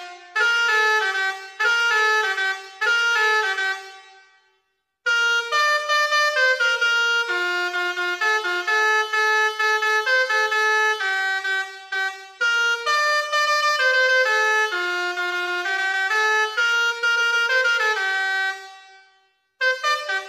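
Basuri multi-tone bus horn playing a tune of trumpet-like notes, one after another. The melody breaks off about four seconds in and again shortly before the end, then starts up again.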